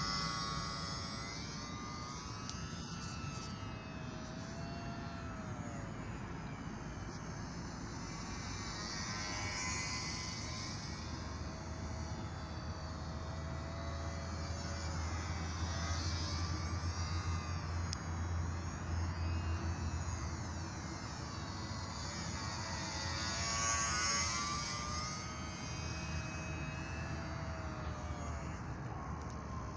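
E-flite J-3 Cub model plane's electric motor and propeller whining as it flies circuits. The pitch swoops up and down as the plane passes near and away, loudest a few seconds before the end.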